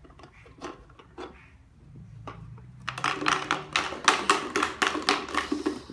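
Plastic toy pieces clicking and rattling as a toddler handles them and takes the toy apart: scattered clicks at first, then a fast run of clicks and rattles about three seconds in.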